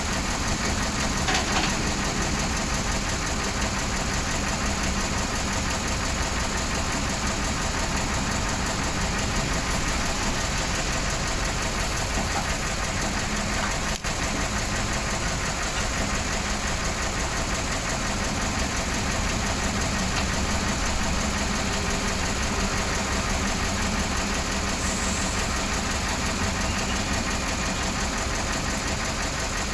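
Diesel engine of a Hyundai 220LC-9S hydraulic excavator running steadily while it digs and loads sand.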